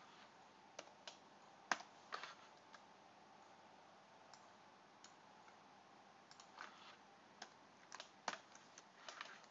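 Faint computer keyboard keystrokes, single clicks and short runs of clicks at irregular intervals with pauses between.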